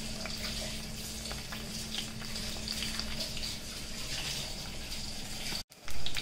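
Garlic, green chili and ginger frying gently in hot oil in a clay pot: a steady sizzle with small crackles. Near the end the sound cuts out for an instant, then comes back louder.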